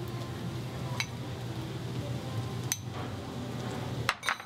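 Light clinks of kitchen utensils against dishes: one about a second in, another near three seconds, and a couple close together near the end, over a steady low hum.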